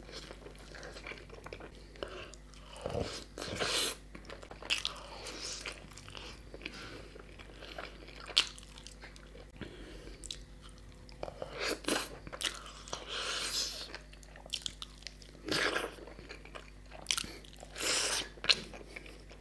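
A person biting and chewing puri (fried bread) dipped in chicken curry, heard close up. Crunches and chewing sounds come at irregular intervals.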